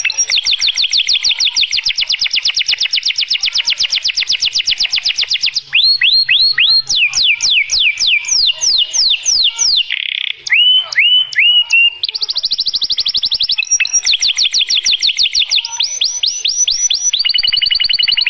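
Domestic canary singing a long, loud song: rapid trills, broken about a third of the way through by a run of slower falling sweeps and a few short slurred whistles, then rapid trills again.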